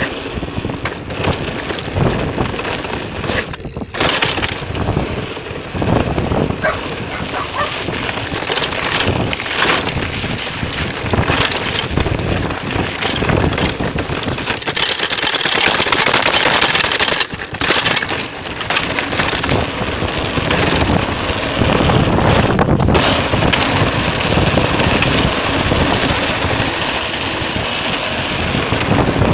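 Wind buffeting an action camera's microphone as a mountain bike rolls down dirt and gravel alleys, with the crunch of tyres on the loose surface and the bike rattling over bumps. The noise is loud and uneven, easing briefly about 4 seconds in and again about 17 seconds in.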